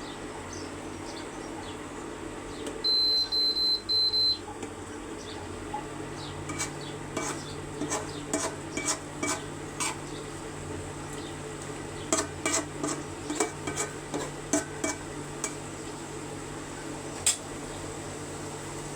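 Metal spoon clinking and scraping against a cooking pot as chicken curry is stirred, in irregular bunches of sharp clicks. Three short high electronic beeps sound a few seconds in.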